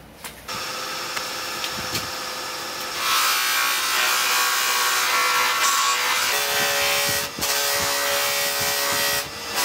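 Lathe-driven cloth buffing wheels spinning, with a snakewood bowl pressed against them: a steady whirring hiss of buffing that starts about half a second in, grows louder and fuller about three seconds in, and dips briefly twice near the end.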